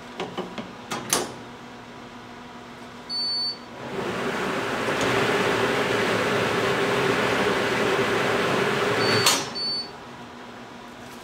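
Dempack H25 one-step shrink machine running a seal-and-shrink cycle. The lid clicks shut, a short beep sounds about three seconds in, and then the shrink hood runs with a steady hiss and hum for about five seconds. It cuts off with a clunk and a second beep as the lid opens automatically.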